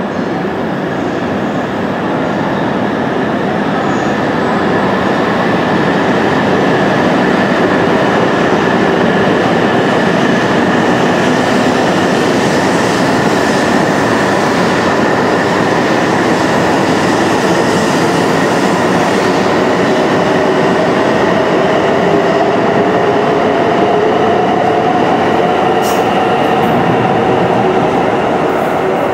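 E2 series Shinkansen train pulling out and accelerating past the platform: a steady loud rush of wheels and running gear, with the electric traction motors' whine slowly rising in pitch through the second half.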